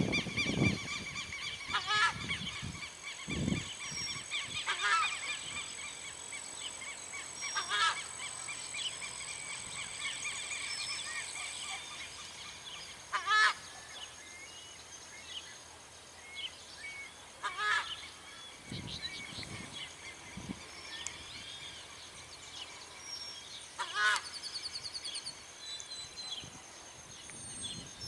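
Southern screamer calling from a treetop: about six loud, goose-like honking calls spaced several seconds apart, over a steady background hum.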